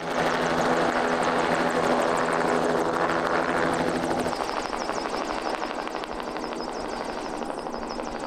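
Crop-spraying helicopter passing low overhead: rapid rotor chop over the engine, loud at first, then dropping off sharply about four seconds in and fading slowly as it flies away.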